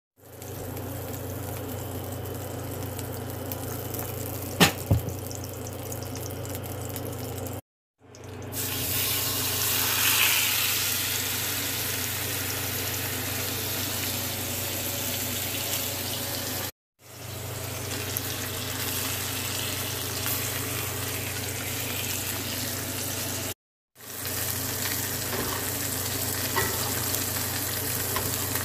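Ribeye steak sizzling in hot oil and butter in a cast-iron skillet: a steady frying hiss with a low hum underneath, broken three times by short cuts to silence.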